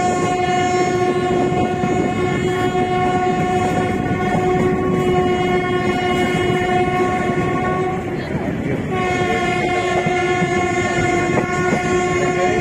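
Train horn sounding one long steady blast, breaking off about eight seconds in and sounding again about a second later. Underneath is the running noise of a moving train on the track.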